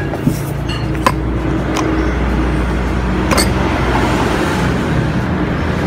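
Steady low rumble of background traffic, with a few sharp clinks of a metal spoon against a ceramic noodle bowl.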